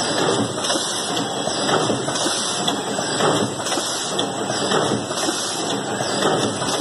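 Automatic packaging line running: a bundling machine and its conveyor belts give a steady mechanical hiss and rattle, with light knocks every half second to a second.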